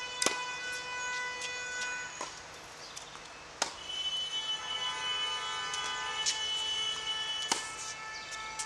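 Tennis balls struck by rackets in a forehand rally: a sharp pop every few seconds, the near player's hits loudest, fainter pops from the far end between them. Several steady high tones hold for a few seconds at a time underneath.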